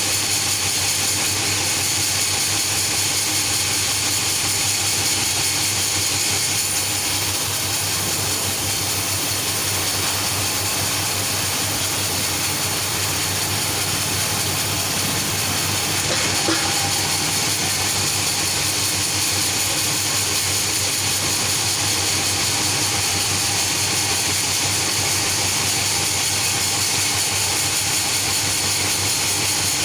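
Sawmill machinery running steadily: a constant loud hiss with a low hum underneath.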